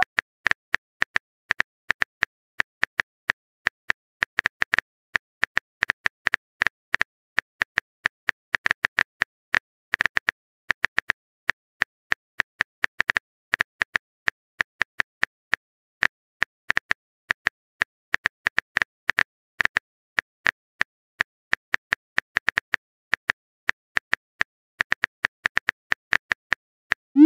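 Smartphone keyboard typing sound effect: a long run of quick, irregular key-tap clicks, several a second, as a message is typed out.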